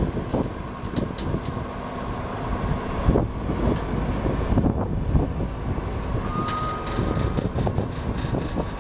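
Sterling L7500 truck's Caterpillar 7.2-litre inline-six diesel engine running, with one short steady beep a little after six seconds in.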